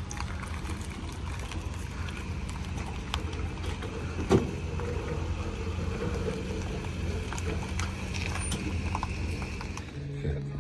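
Pickup truck engine running at low revs while towing a boat trailer, a steady low hum with scattered light rattles and clicks. There is one loud clunk about four seconds in.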